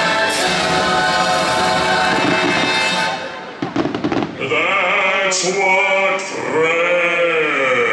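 Fireworks show soundtrack music playing loudly. About three seconds in it drops back for a quick burst of firework bangs and crackles, then a sung voice comes in holding long, bending notes.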